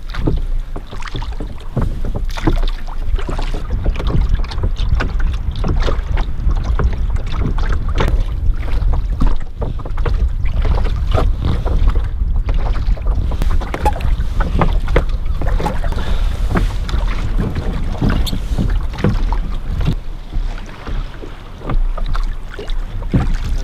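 Wooden rowboat being rowed: the oars knock in their metal oarlocks and dip and splash in the water with frequent irregular knocks. Wind buffets the microphone with a constant low rumble.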